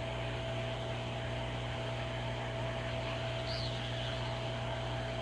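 Hot-air rework station blowing steadily onto a BGA NAND chip to melt the solder under it: an even airflow hiss with a low hum and a faint constant whine.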